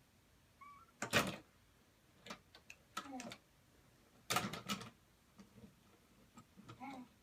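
Hard clattering knocks of toys being handled and knocked together, one loud cluster about a second in and another around four seconds in, with a small child's short vocal sounds in between.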